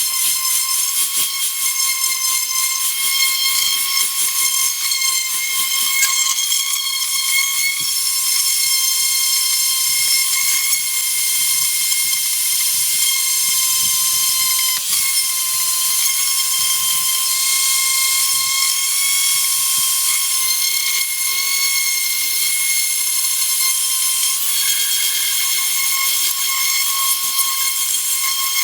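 Electric power sander running steadily against wood, a high motor whine over a loud hiss, with a slight change in pitch about halfway through.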